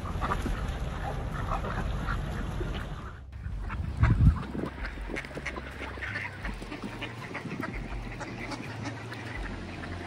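A crowd of mallard ducks quacking and calling over one another, with a brief loud low thump about four seconds in.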